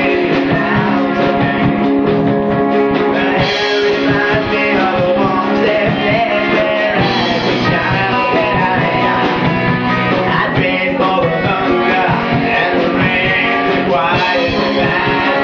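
Live rock band playing: electric guitars and drums, with a male lead singer singing into a microphone.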